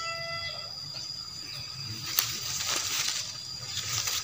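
Durian seedling leaves rustling and brushing against the phone, in a spell of about a second that starts with a sharp tick about two seconds in and a shorter one near the end. A rooster's crow trails off in the first half second, over a steady high insect tone.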